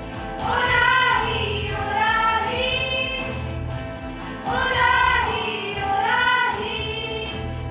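Children singing together, a hymn-like song with accompaniment beneath.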